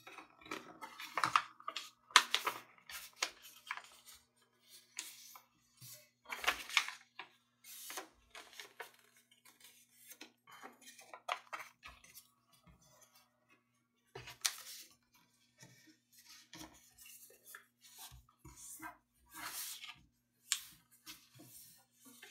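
A sheet of US Letter paper being folded and creased by hand into a paper airplane's wing: irregular rustling, crinkling and crisp swishes as the paper slides on a cutting mat and the folds are pressed flat.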